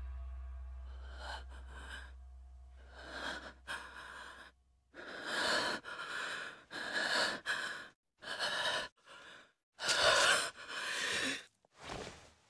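The last chord of a rock song fades away. Then an anime character breathes hard in a dozen uneven, noisy breaths, each about half a second to a second long, with short silences between them.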